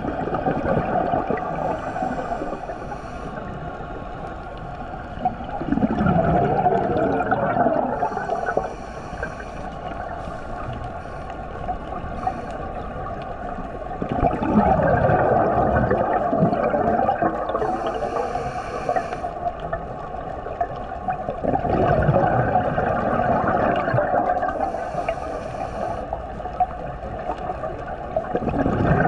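Scuba diver breathing through a regulator underwater: a short hiss on each inhale, then a long burst of bubbling, gurgling exhaust bubbles on the exhale, repeating about every seven to eight seconds.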